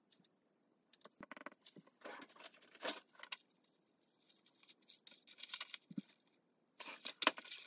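Paper sheets rustling and sliding as they are lifted and shifted by hand over a sketchbook page, in several short bouts with brief pauses between.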